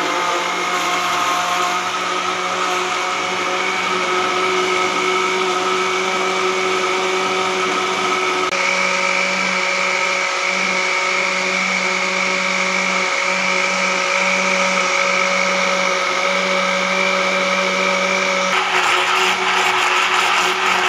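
Electric countertop blender running steadily at full speed, its motor whining as it purées a milk, date and banana mixture. The tone shifts slightly about eight seconds in and again near the end.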